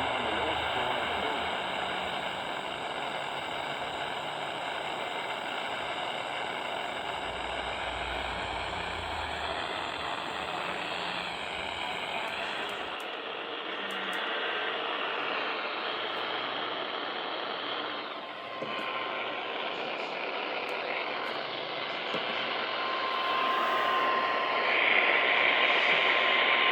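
Steady hiss and static of a weakly received radio broadcast, with faint steady tones. The static changes character about halfway through and grows louder near the end, where a steady tone sounds.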